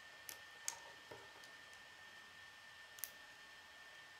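K'nex plastic rods and connectors clicking as they are handled and snapped together, four short sharp clicks: three in the first second or so and one about three seconds in.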